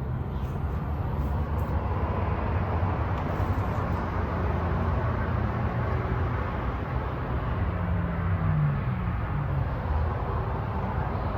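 Steady whir and low hum of a small diesel air heater's blower fan during its startup phase, with no fuel-pump clicking yet.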